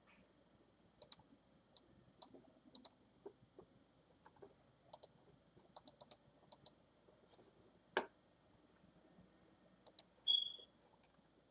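Computer mouse buttons clicking softly, many in quick double clicks. There is a sharper knock about eight seconds in. Near the end comes a single short high chirp from a smoke alarm, the low-battery warning, and it is the loudest sound.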